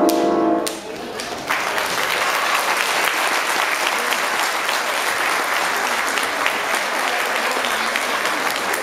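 Music ends just under a second in; a moment later an audience breaks into applause, a steady dense clapping that keeps going.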